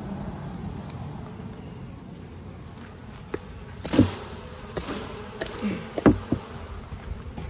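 Honeybees buzzing in a steady hum around an opened hive, with a series of sharp knocks in the second half, the loudest about four seconds in and again about six seconds in.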